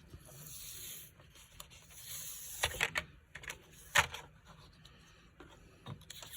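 Paper sliding and rustling against a Stamparatus stamping platform as a stamped card piece is taken off it, with a few sharp clicks and knocks from the tool, the loudest about four seconds in.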